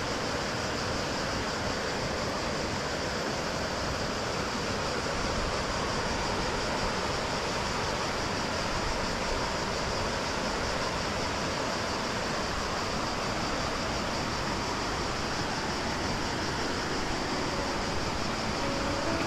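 Rushing water of a waterfall's cascades: a steady, even roar with no change.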